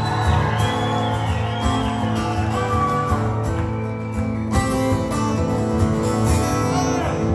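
Two acoustic guitars strummed together in a live performance.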